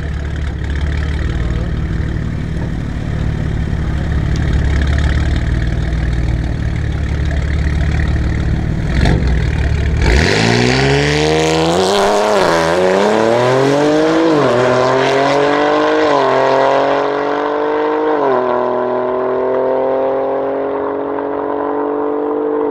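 Tuned BMW M3 G80 Competition's twin-turbo inline-six, with an Aulitzky exhaust, idling with a low rumble at the start line, then launching about ten seconds in and accelerating hard. The engine note rises and drops at about four quick upshifts, then holds a steady high pitch as the car pulls away down the strip.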